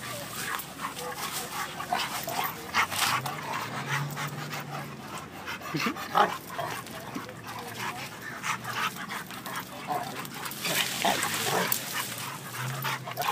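Two dogs, a Rottweiler and an American Bulldog mix, play-fighting at close range: panting and scuffling through dry plants and mulch, with many short, sharp noises throughout and the sharpest about six seconds in.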